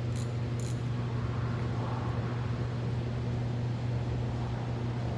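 Steady low mechanical hum that does not change, with a couple of faint clicks near the start.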